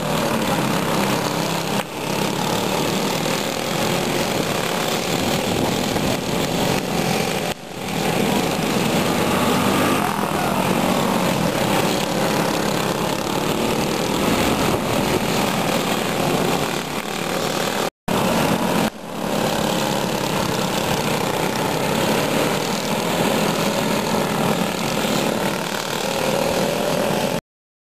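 Several racing karts' single-cylinder Briggs & Stratton flathead engines running hard, the pitch rising and falling as they lap the track. The sound drops out for a moment about two thirds of the way in and cuts off just before the end.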